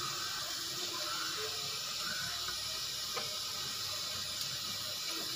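Steady hiss from a lit gas stove, with oil warming in an aluminium pot and not yet sizzling.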